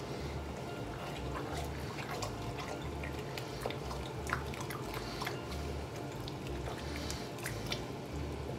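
A wooden spoon stirring a thick, wet mince-and-bean sauce in a stainless steel pot, giving small wet clicks and scrapes. Beneath it runs a low hum that pulses about once a second.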